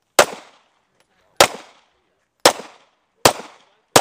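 Semi-automatic pistol fired five times, roughly a second apart, each shot a sharp crack that dies away quickly with a short echo.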